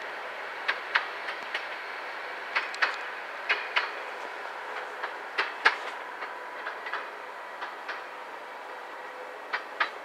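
SN83 (DH2) diesel railbus rolling over rail joints, its wheels clicking in pairs about five times, over a steady hiss.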